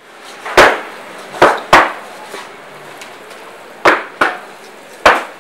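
Heavy cleaver chopping into a tuna on a cutting table: six hard chops, mostly in quick pairs, with a pause of about two seconds in the middle.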